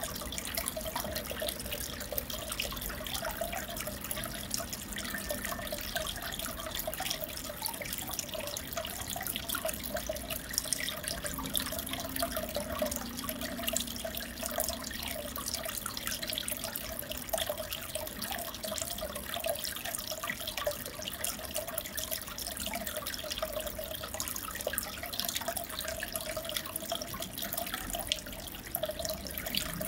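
Aquarium water running steadily, a continuous trickling, splashing water noise full of small droplet-like ticks.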